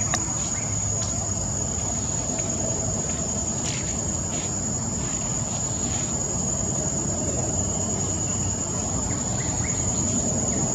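Insects droning steadily at one high pitch, over a low background rumble.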